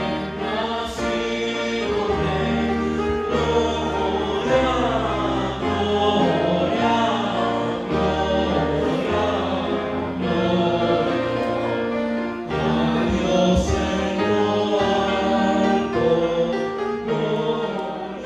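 Choir singing with instrumental accompaniment, over a bass line that moves in long held notes.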